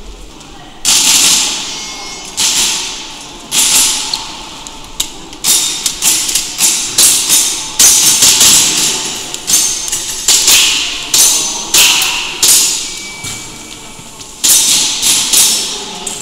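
A gas blowback airsoft pistol firing a string of about twenty shots, singly and in quick pairs. Each sharp crack echoes through the large hall. After a gap of about a second near the end, a few more shots follow.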